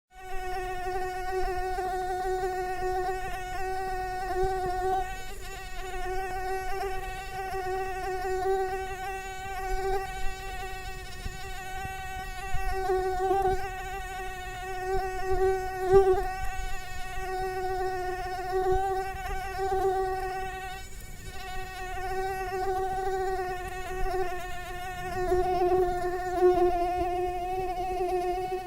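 Mosquito buzzing in flight: a continuous whine with a slight waver in pitch, swelling and fading in loudness.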